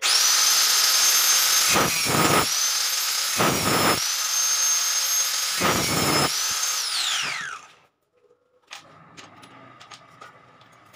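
Angle grinder running at full speed with a high whine, its cutting disc biting through a metal MCB mounting rail three times: about two, three and a half and six seconds in. It is then switched off, and the whine falls away as the disc winds down about seven seconds in. A few faint handling clicks follow.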